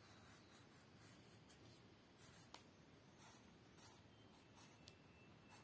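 Faint scratching of a black drawing pen on paper in short, repeated strokes as figures are outlined, with one light tick about halfway through.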